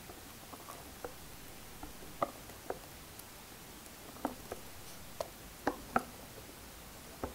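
Wire whisk folding meringue into egg-yolk batter in a glass mixing bowl: irregular light clicks of the wires against the glass. The loudest two clicks come close together near the end.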